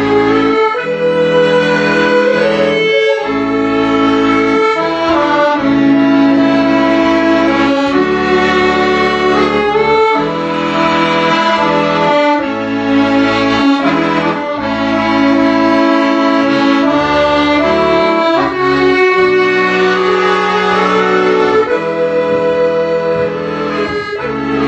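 Instrumental music led by bowed strings, with sustained notes and chords over a low bass line that change every second or two.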